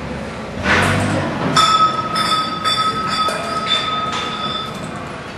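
Metal fittings and valves on a gas cylinder fill manifold being worked by hand: a short hiss of gas about a second in, then repeated metallic clinks over a steady high ringing tone that stops near the end.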